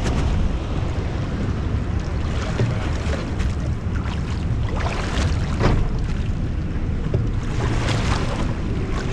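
Wind buffeting the microphone over open ocean swell, with water sloshing and slapping close to the lens and a few sharper splashes.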